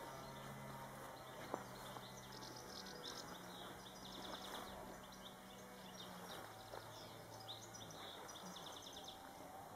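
Faint garden ambience: small birds chirping in quick short calls off and on, over a low steady hum.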